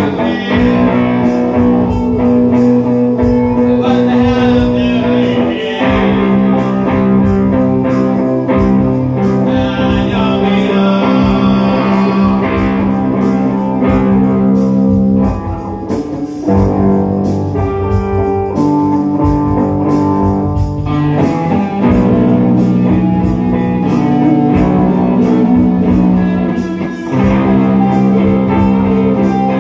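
Two electric guitars playing together through amplifiers, a blues-rock tune with sustained chords and lead notes.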